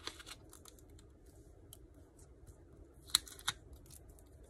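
Paper pattern, tape strips and a cloth tape measure being handled on a tabletop: light rustling and small clicks, with a short cluster at the start and two sharper taps about three seconds in.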